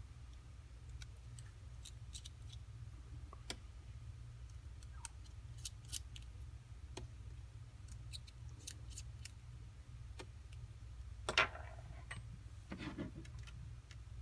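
Scattered small clicks and taps of a precision screwdriver and tiny phone screws being handled and set down on the bench, with a louder scrape about eleven seconds in, over a steady low hum.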